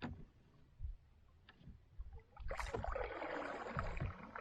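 Water swishing and splashing beside a canoe, starting about halfway through and lasting nearly two seconds, after a few light knocks on the hull.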